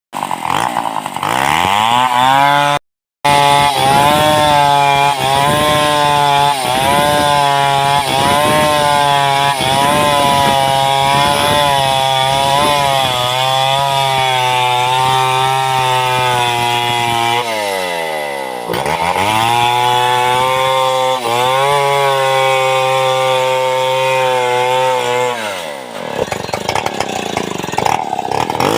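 Chainsaw running at high revs, cutting lengthwise through a wooden log, its pitch wavering under load. The sound cuts out briefly a few seconds in. The revs drop and climb again about two-thirds of the way through and fall away near the end.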